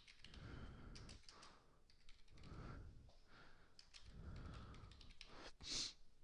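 Faint computer keyboard keystrokes and clicks, with soft breathing close to the microphone and a short sharp breath near the end.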